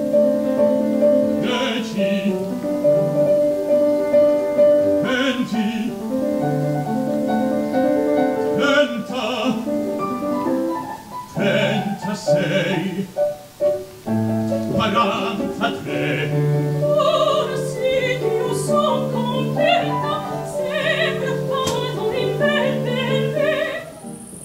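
Opera singers performing with grand piano accompaniment, held sung notes and wavering voices over piano chords.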